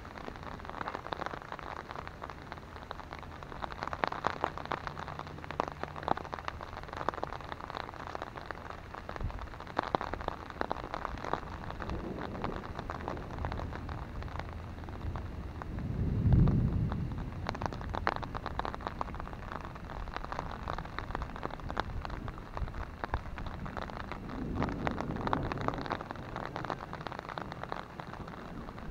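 Rain falling on an umbrella held just overhead: a dense, steady run of drop hits. A low rumble of thunder swells and fades about sixteen seconds in and is the loudest sound, with fainter rumbles around twelve and twenty-five seconds.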